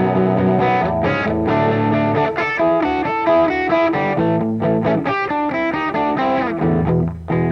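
Guitar playing the instrumental introduction to a blues song: a steady run of picked notes and chords with a little distortion.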